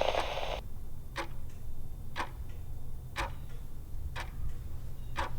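Steady ticking, one sharp tick a second, five in all, over a low hum.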